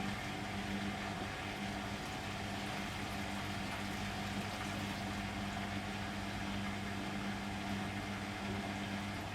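Beko WM6255W washing machine running with a steady hum over water noise; the hum cuts out near the end.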